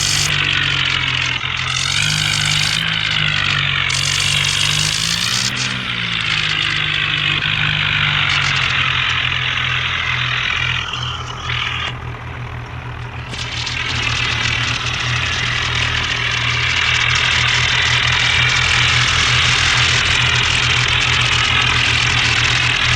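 Bulldozer engine running, its pitch rising and falling over the first several seconds, dipping briefly about halfway, then running steadily with an even chug.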